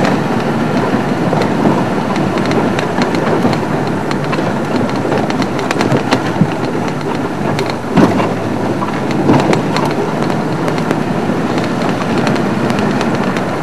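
Open game-drive vehicle driving along a dirt track: steady engine and road noise with frequent short knocks and rattles.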